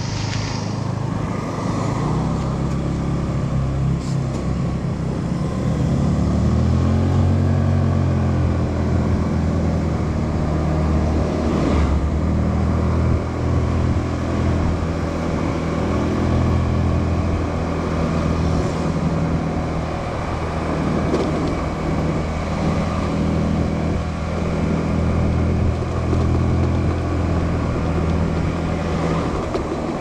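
Small motorbike engine running while riding, its pitch rising as it speeds up about two seconds in and again around six seconds, then rising and falling with the throttle.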